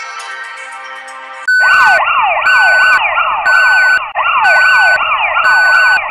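Background music for the first second and a half, then a loud electronic siren-like sound effect: rapid falling pitch sweeps repeated several times a second, under a steady beep that switches on and off about once a second.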